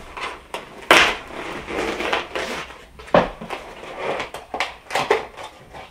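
A long cardboard candy-bar box being pulled open and handled: irregular scraping, tearing and rustling of cardboard, with sharper knocks about a second in and again around three seconds.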